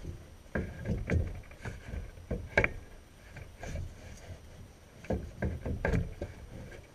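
A PVC 45-degree fitting being handled and test-fitted on a furnace's PVC flue pipe: irregular plastic knocks and clicks with rubbing and handling noise. The sharpest knock comes about two and a half seconds in.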